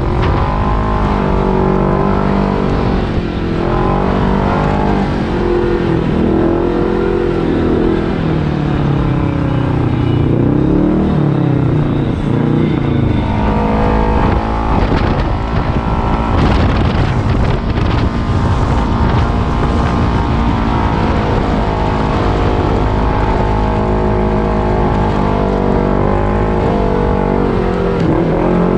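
Kawasaki KRX 1000 side-by-side's parallel-twin engine running under way, its revs rising and falling continually as it drives.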